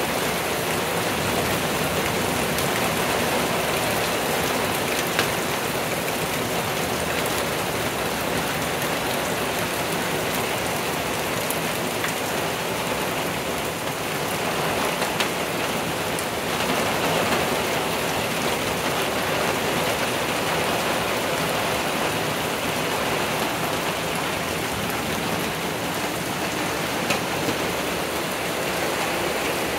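Heavy, steady downpour falling on woodland trees. A few sharp ticks of nearby drops stand out now and then.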